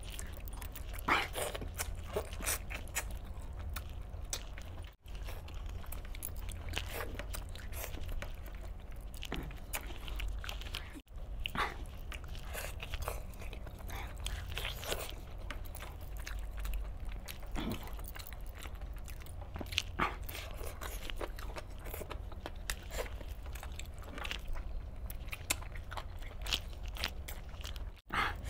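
Close-up chewing, biting and crunching as chicken pieces in gravy are torn apart by hand and eaten, a run of irregular wet clicks and crunches. A steady low hum runs underneath.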